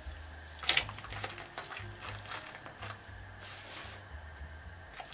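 Pot of water at a rolling boil, bubbling, with a splash about a second in as fresh udon noodles are dropped in, and another burst of splashing and hiss past three seconds.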